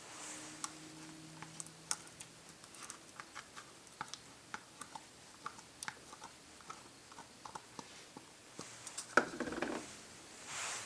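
Small, irregular ticks and clicks from a plastic cup and a stainless-steel saucepan of milk as ingredients are tipped into the pan. About nine seconds in, a sharp knock and a brief scraping as a silicone spatula goes into the pan and starts stirring.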